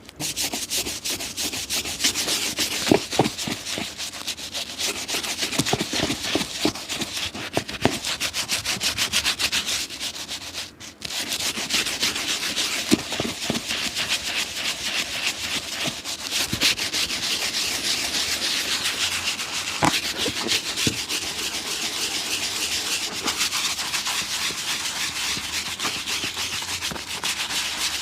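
Rapid back-and-forth scrubbing strokes on a shoe, as in brushing or sanding during its restoration, with a short pause about eleven seconds in.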